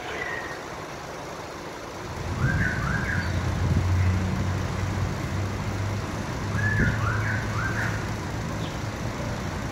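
A pile press machine's power unit running: a low, steady hum that grows louder about two seconds in. Short high chirps sound over it twice.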